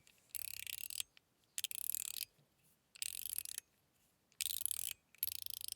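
Stainless-steel mechanical fidget slider (Gao Studios Candy Rich Coin V2) being slid back and forth, each slide a short run of rapid metallic clicks. Five slides, about a second apart.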